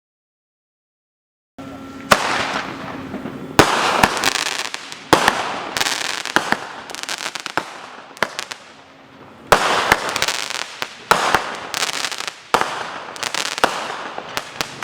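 Fireworks going off shot after shot, starting after about a second and a half of silence. Sharp loud bangs come about every second and a half, with crackling between them.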